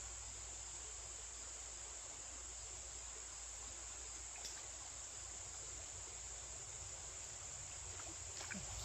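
Steady, high-pitched chorus of insects such as crickets, unbroken throughout, over a faint low rumble, with a small click about four and a half seconds in.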